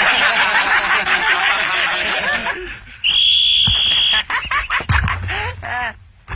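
Many voices laughing and jeering together, then a single long referee's whistle blast about three seconds in, held for just over a second, with a few short shouts after it.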